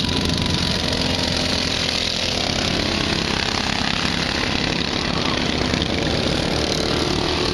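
Racing lawn mower engine running steadily under power, a continuous small-engine drone.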